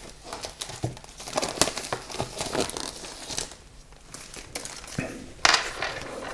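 Blu-ray collector's packaging, a cardboard full slip, crinkling and rustling as it is handled and opened, with a louder rustle about five and a half seconds in.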